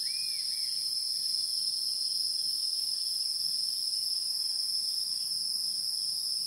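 Steady, continuous high-pitched insect chorus, like crickets trilling without a break, with a couple of faint short chirps about half a second in.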